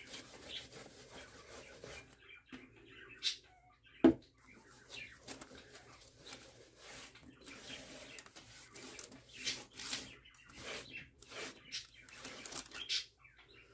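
A cloth rag rubbing cold wax medium into watercolour paper mounted on a birch wood panel, in repeated short scratchy strokes. There is a sharp knock about four seconds in.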